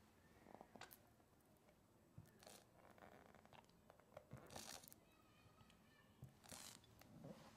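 Near silence with a few faint, short handling noises, soft taps and brushes against a glass bowl, while agave syrup is poured in a thin stream over vegan cream cheese.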